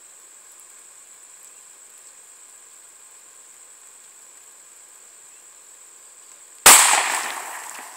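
A single pistol shot from a Glock 22 firing a .40 S&W round, near the end, its report dying away over about a second.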